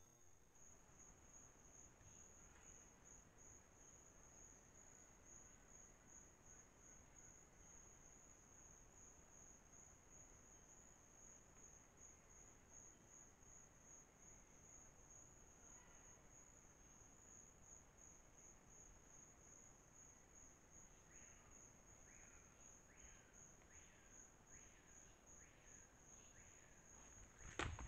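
Faint night-insect chorus: a steady, high-pitched trill pulsing about three times a second. In the last few seconds another animal gives a run of short calls under a second apart, and a few sharp clicks come right at the end.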